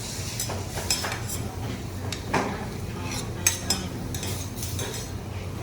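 Metal utensils and tableware clinking and scraping, with short sharp clinks scattered throughout, over a steady low hum.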